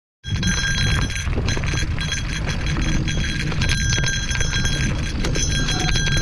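Movement along a dirt forest trail: a low, steady rumble of jostling and wind on the microphone. A steady high ringing and a few light knocks sound over it.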